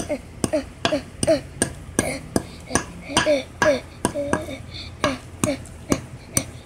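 A hand tool striking and crushing a rock on concrete paving: repeated sharp clinking strikes, about three a second, each followed by a short falling tone.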